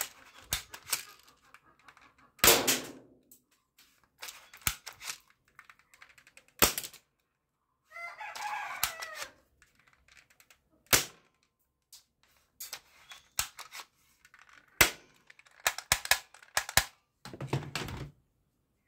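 Hard plastic clicks and clacks from a toy pump-action gun being worked by hand: single sharp clacks every few seconds, the loudest about two and a half seconds in, and a quick run of clicks near the end. A short pitched call sounds about eight seconds in.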